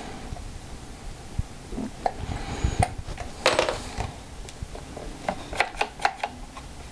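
Safariland ALS holster handled and turned over by hand: scattered light clicks and taps of its hard parts, a short rubbing scrape about halfway through, and a quick run of clicks near the end.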